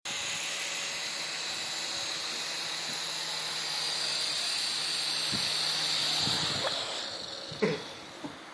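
Syma S107 mini R/C helicopter's electric motors and coaxial rotors whirring with a steady high whine, a little louder midway, then fading after about seven seconds.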